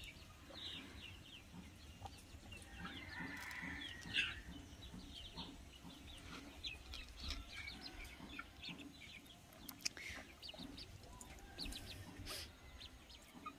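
Chickens clucking faintly and intermittently in the background, with a few soft knocks from a plucked chicken being washed in a metal basin.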